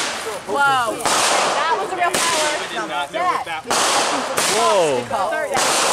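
Ground firework going off in a series of sudden hissing, crackling bursts of sparks, about one a second, with pitched calls rising and falling over them.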